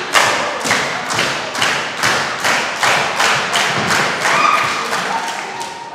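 Wrestling crowd clapping in unison in a steady rhythm, about two claps a second, echoing in a gym hall.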